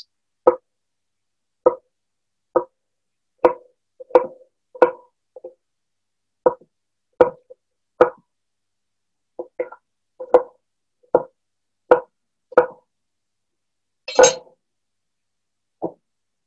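Chef's knife cutting a red bell pepper on a cutting board: single short knocks about once a second, unevenly spaced, with one longer, louder knock about two seconds before the end.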